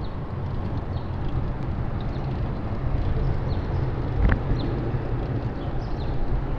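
Steady low rumble and hiss of a bicycle ride on a city street, with a few faint light rattles and a sharper click about four seconds in.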